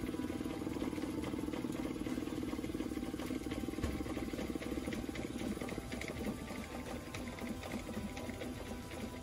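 Suzuki 20 hp two-cylinder four-stroke fuel-injected outboard idling at about 800 rpm, a fast even firing rhythm, growing a little quieter over the last few seconds.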